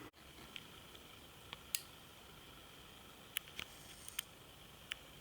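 Faint steady hum with a few short, sharp clicks and ticks scattered through it, about eight in all, most of them between about one and a half and five seconds in.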